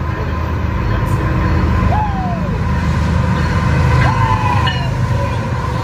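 BNSF diesel freight locomotives approaching and passing at the head of a double-stack container train, a low engine and rail rumble growing louder as they draw level. A steady high tone sounds over it, with two brief falling squeals about two and four seconds in.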